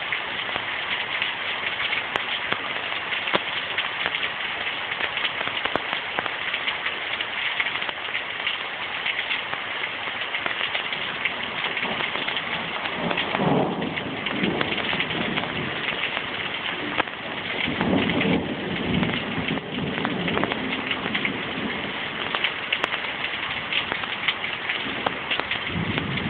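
Heavy rain pouring steadily, with thunder rumbling twice in the second half.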